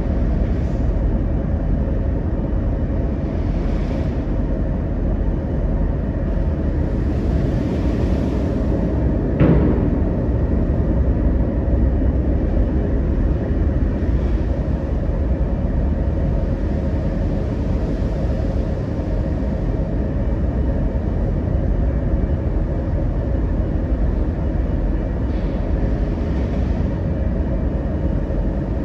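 Steady low rumble of a car ferry under way in rough weather, with rushing wind and sea noise that swells and fades several times. A single sharp knock about nine seconds in.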